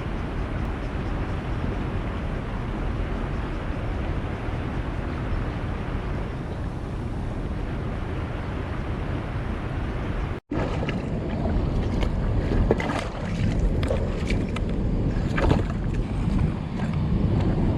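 Steady rushing of creek water mixed with wind buffeting the microphone. After a sudden break about two-thirds of the way through, the rush continues with scattered clicks and knocks.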